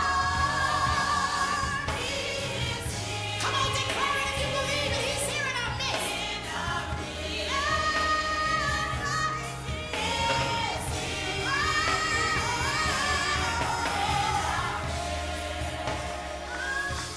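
Gospel song: voices singing a gliding melody over a steady bass accompaniment.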